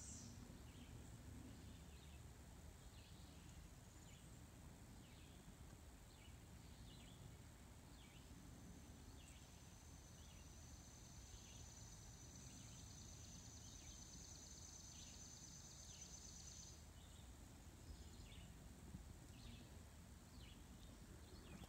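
Near silence: faint outdoor ambience with small chirps about once a second and a faint steady high-pitched whine through the middle. The high-flying jet itself is not clearly heard.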